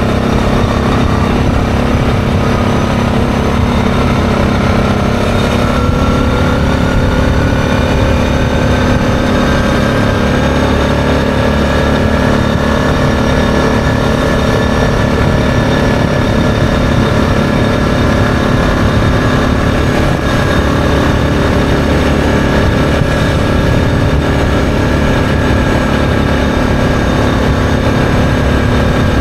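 ATV engine running at a steady cruising speed as the machine rides along, its pitch rising a little over the first few seconds and then holding. Heavy wind rumble on the microphone.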